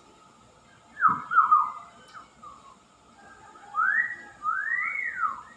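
Caged myna bird whistling: a quick run of three falling notes about a second in, then louder notes that rise and fall, from about four seconds in.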